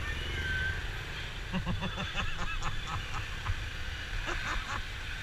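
Motorbike riding in busy city traffic: steady engine and road rumble, with a quick run of short, pitched horn honks in the middle and another brief cluster near the end.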